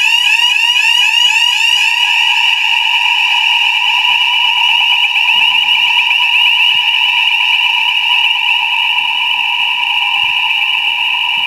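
Electronic fire alarm sounding loudly: a high, pitched tone rising in quick repeated sweeps, about three a second. After about two seconds the sweeps blur into a near-steady wail.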